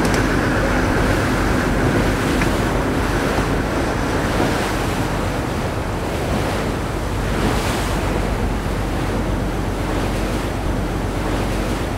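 Sea water rushing and splashing along the hull of a moving tuna line-fishing boat, with wind on the microphone and a steady low hum underneath. The rush swells a couple of times.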